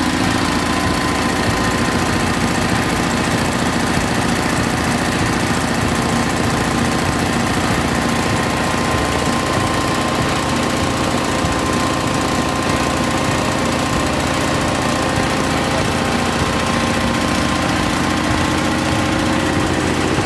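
Onan twin-cylinder engine in a garden tractor running steadily, fed by a Briggs pulse fuel pump that stands in for its failed carburetor-mounted pump.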